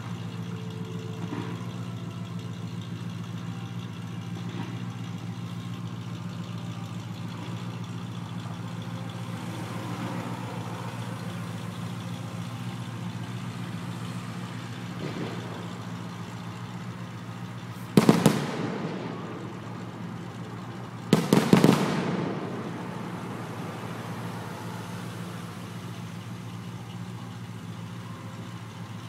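Steady hum of road traffic at a junction, cars idling and moving. Past the middle a single loud firework bang rings out, and a few seconds later a short burst of crackling firework reports.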